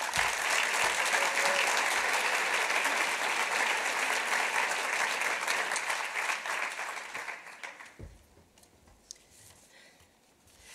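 Audience applauding steadily, the applause dying away after about seven or eight seconds, followed by a soft low thump.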